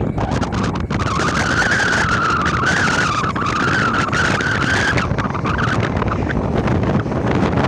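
Jet airliner engines at takeoff thrust: a loud, steady rush with a wavering whine that comes in about a second in and fades near the end, over wind buffeting the microphone.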